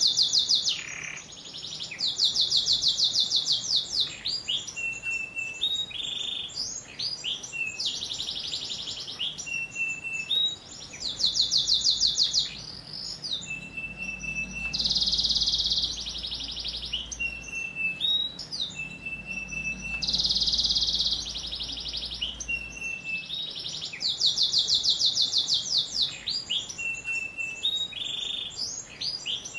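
Yellow domestic canary singing a long, varied song. Very fast rattling trills alternate with short clear whistled notes and a few dense buzzy phrases, the sequence repeating over and over.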